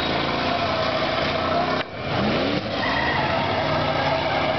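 Demolition-derby hearse engines running hard and revving as the wrecked cars push against each other, with the pitch climbing a few times after a brief dip about two seconds in.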